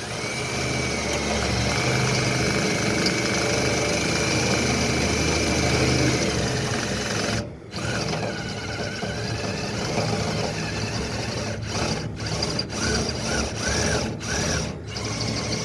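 Power drill boring out the rivets on a toolbox door, drilling the rivet heads off. It runs steadily with a high whine for about seven seconds, stops briefly, then runs again in short stop-start spells with a wavering pitch.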